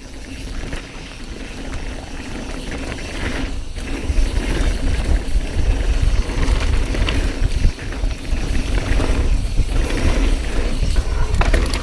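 Mountain bike descending a dirt trail: wind rushing over the microphone, with the tyres and frame rattling over rough ground. It gets louder about four seconds in as the bike picks up speed.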